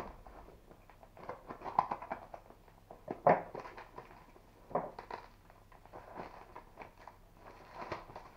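Hands unwrapping a parcel sealed in plastic packing tape: irregular crinkling and rustling of the tape and wrapping, with two sharper rips about three and five seconds in.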